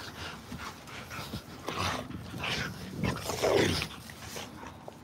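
Bully-breed dogs playing rough, making short dog noises, the loudest a little over three seconds in.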